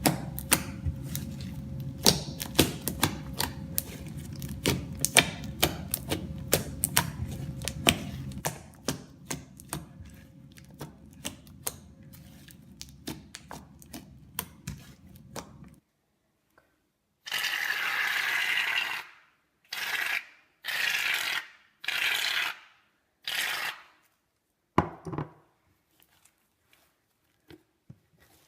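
Sticky slime being kneaded and squeezed by hand, with rapid wet clicking and popping over a low rumble; this stops abruptly about halfway. It is followed by about five short hissing bursts, a second or so each, and a single thud.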